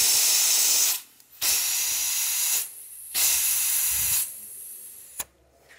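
Compressed-air tyre inflator with a dial gauge hissing in three bursts at the valve of a quad bike tyre, setting it to 20 psi. A sharp click comes near the end.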